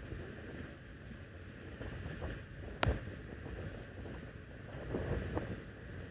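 Low, uneven rumble of wind on the microphone, with one sharp click a little under three seconds in.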